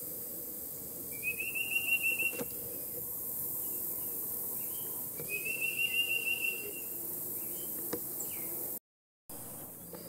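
Tufted titmouse singing two whistled phrases a few seconds apart, each a quick run of repeated notes lasting about a second, over a steady faint hiss.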